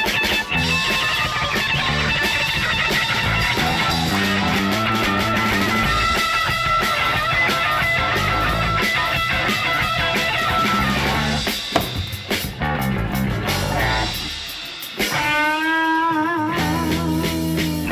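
Rock band music with electric guitars, bass and drum kit. Near the end the band drops out briefly, a wavering lead line carries on alone, and then the full band comes back in.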